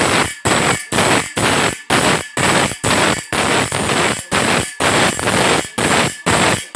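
Electric grinding wheel sharpening a steel saw blade tooth by tooth: a harsh grinding rasp about twice a second, breaking off briefly as each tooth is moved onto the wheel.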